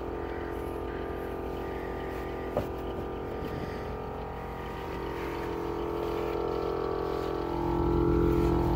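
Off-road vehicle's engine idling steadily, growing louder near the end, with a single short knock about two and a half seconds in.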